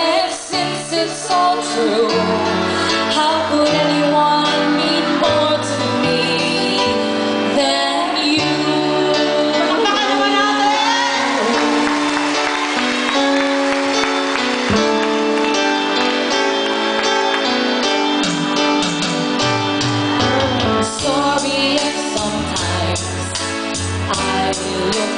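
Live band playing, with electronic keyboards and a female voice singing over the accompaniment.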